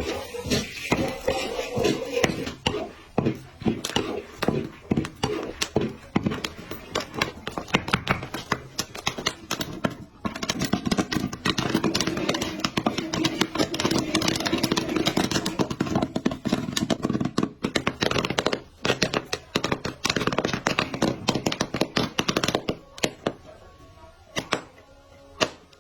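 Popcorn kernels popping rapidly in dense, irregular pops that thin out to a few scattered pops near the end as the batch finishes, over background music or voices.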